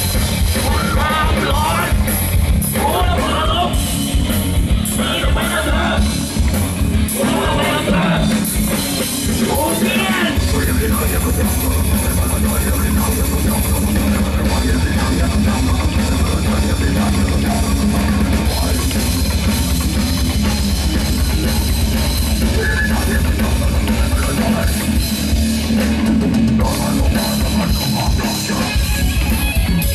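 Live metal band playing: distorted electric guitar, bass guitar and drum kit, with vocals over roughly the first ten seconds. About ten seconds in, the low end turns steady and dense.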